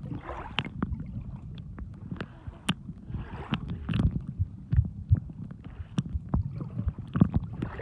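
Shallow seawater washing around a submerged camera, muffled and rumbling, with many scattered sharp clicks and knocks throughout.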